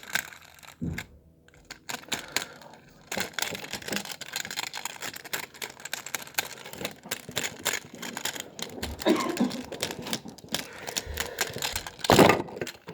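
Toy packaging and a die-cast toy truck being handled: irregular clicking, rattling and plastic rustling, with a louder rustle about twelve seconds in.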